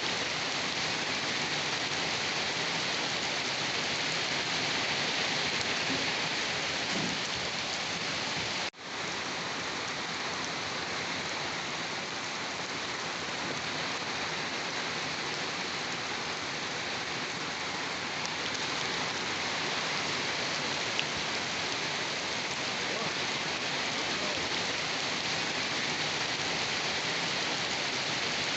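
Steady rain falling, a dense even hiss without a break in rhythm. It cuts out for an instant about nine seconds in and resumes at once.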